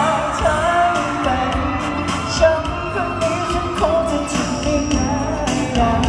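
Male vocalist singing a Thai pop song live into a handheld microphone, with backing music.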